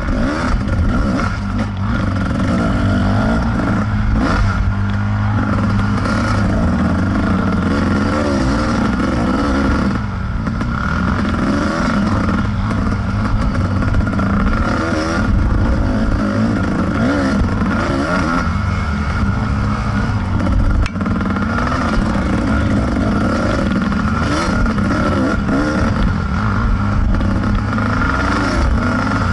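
Kawasaki KDX220's two-stroke single-cylinder engine running hard on a dirt-bike trail, its revs rising and falling with the throttle. The engine sound dips sharply for a moment about two-thirds of the way through.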